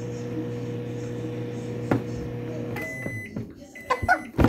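Microwave oven running with a steady electrical hum that stops about three seconds in, followed by its short high beeps at the end of the cycle and a sharp click.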